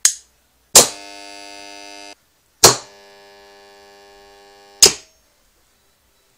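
Old AC contactor pulling in with a loud clack, then its coil humming steadily at mains frequency. This happens twice, the second hum quieter, and a sharp click ends the second hum. The clack comes once the fluorescent-lamp glow starter wired in series with the coil closes and lets full current through it.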